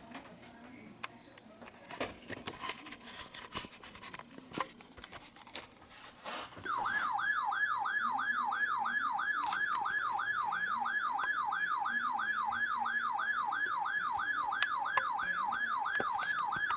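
A weather alert radio's electronic siren alarm, warbling rapidly up and down about three times a second, signalling an incoming weather warning. It starts about seven seconds in, after faint radio static and clicks.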